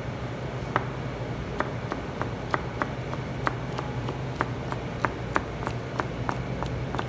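Chef's knife slicing a green chili into rings on a plastic cutting board: a steady run of sharp chops, about three a second, starting about a second in, over a steady low hum.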